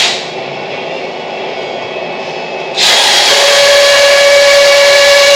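Power drill motor running at a steady speed with a constant whine, starting about three seconds in, as screws are driven into the wall framing.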